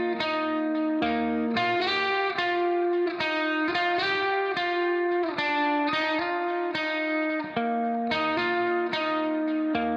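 Background music: a plucked-string melody, its notes changing a few times a second at a steady level.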